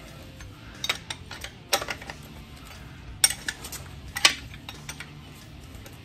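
Scattered sharp metallic clinks of a steel wrench and loosened nuts being handled on a truck's front brake backing plate, about five clinks in a few seconds.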